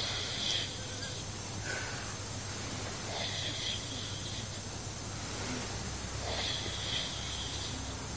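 A drunk man asleep and snoring, drawing a slow breath about every three seconds, over a steady low hum.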